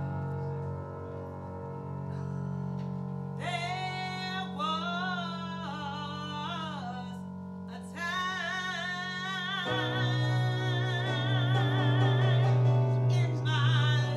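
A woman singing with a wide vibrato over sustained electric keyboard chords. The voice comes in a few seconds in, drops out briefly near the middle, then carries on while the chords shift lower.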